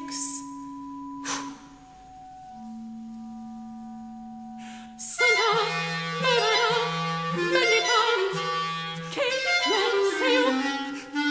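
Clarinet in a contemporary classical piece: soft held low notes, then about five seconds in a sudden loud, busy passage of quick, wavering notes over a lower repeated tone.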